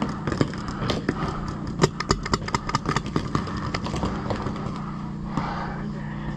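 Paintball markers firing across the field: many sharp, irregular pops, thickest in the middle, over a steady low hum.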